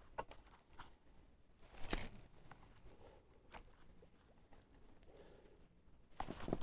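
Faint, sparse ticks and a brief rattle from a Daiwa Crest spinning reel and rod being handled and cranked in short bursts during a stepped jig retrieve. A louder scratchy noise starts near the end.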